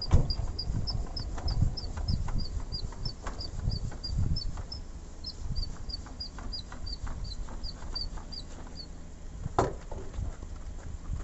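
A bird calling a long run of short, high chirps, about three a second, stopping about nine seconds in, over a steady low rumble, with a sharp knock near the end.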